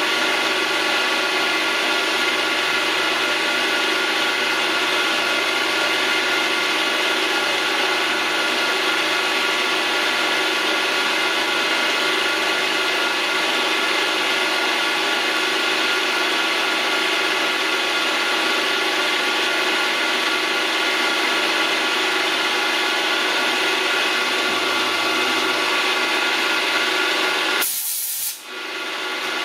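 Vertical milling machine running steadily, its milling cutter taking a cut across a small mixture screw held in the chuck, with a steady multi-tone gear and spindle whine. Near the end the sound changes briefly for about a second.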